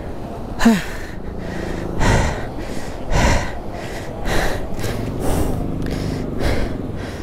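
A person breathing hard close to the microphone, a loud breath about once a second, with a short grunt about a second in, while straining to hold up a heavily loaded motorcycle.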